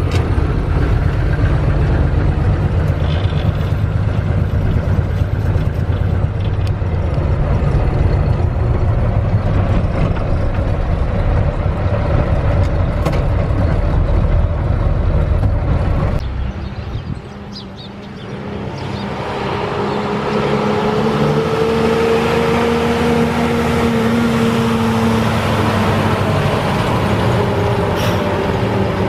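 A 1982 Mack R-Series truck's Mack diesel engine, heard from inside the cab as a loud steady drone while driving. About sixteen seconds in the sound cuts and drops briefly. The truck is then heard from the roadside driving by, its engine note rising and then easing off.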